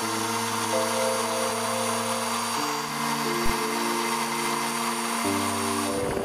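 Background music of held chords that change every second or two, over a steady hiss and thin high whine from a small milling machine's end mill cutting aluminium. There is one brief knock about halfway through.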